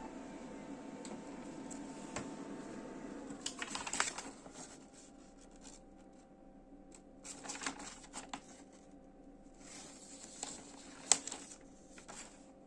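Brother printer mechanism running: a steady motor whine with intermittent clicks and rattles. The busiest rattling comes about four seconds in and again around eight seconds, with a sharp click near the end.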